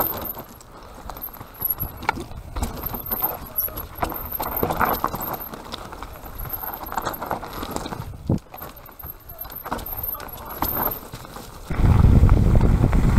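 Mountain bike rattling down rough singletrack: tyres crunching over dirt and stones, chain and frame clattering in irregular knocks over bumps. Near the end it gives way to loud, steady wind rumble on the microphone as the bike rolls fast along a gravel road.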